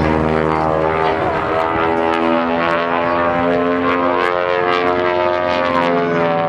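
Beech 18's twin radial engines droning through an aerobatic climb and dive, the note sliding slowly up and down in pitch.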